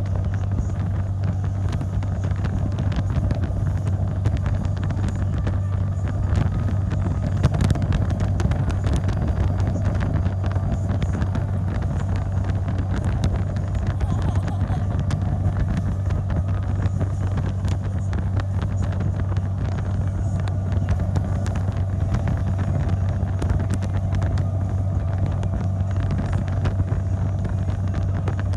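Parasail tow boat's engine running under way with a steady low drone, with wind noise on the microphone.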